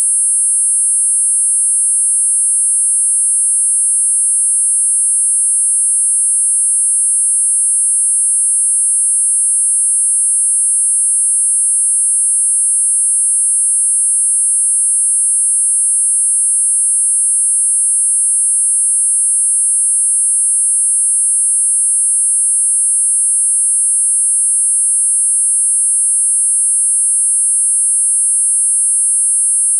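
Four steady, high-pitched synthesized sine tones at 8.5, 9, 10 and 10.5 kHz sounding together without a break, forming a tinnitus masker.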